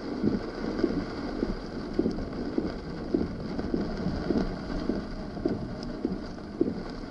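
Wind buffeting the microphone and rain noise while moving along a wet road, with soft irregular thumps about twice a second.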